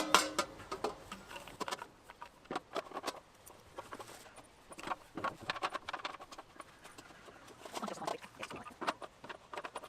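Irregular clicks and knocks as the legs of a Cadac Carri Chef 2 gas barbecue are handled and screwed onto the burner unit.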